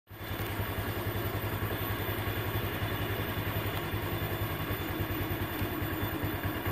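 Motorcycle engine running steadily at low speed, with a fast, even low pulse.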